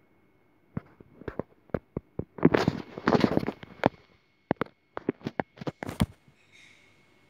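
A run of sharp clicks and taps with a rustling stretch in the middle, from a phone being handled close to the microphone while its volume buttons are pressed.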